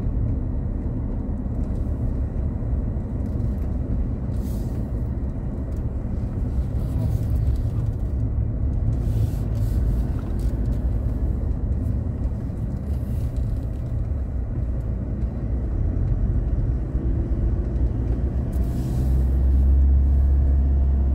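Cabin noise of a moving car: a steady low rumble of engine and tyres on the road, swelling louder near the end.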